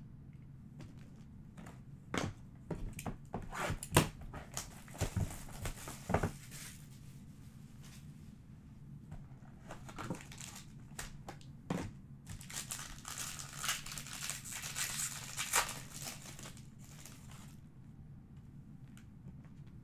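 A trading-card hobby box and its wrapping being handled and opened: a run of clicks and knocks, then a few seconds of crinkling and tearing of the packaging in the middle.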